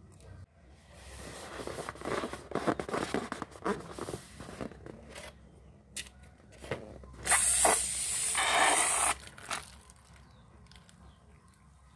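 Slime being squeezed and worked with a balloon: a few seconds of crackly squishing, then about seven seconds in a loud hiss of air forced out through the slime for about two seconds.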